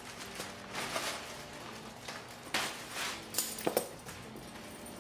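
Plastic bag crinkling and rustling as a padded kayak seat backrest is pulled out of it, with a few sharp clicks about three and a half seconds in.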